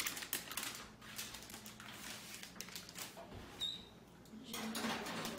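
Parchment paper rustling and crinkling as a lined baking sheet of pastries is carried and slid into the oven, in many short irregular crackles.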